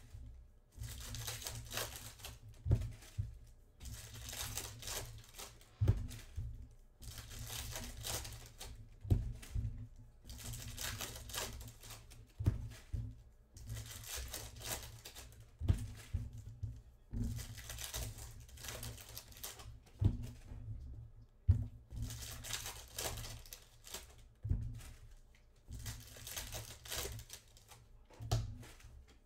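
Foil trading-card pack wrappers torn open and crinkled by hand, again and again, with short sharp knocks in between.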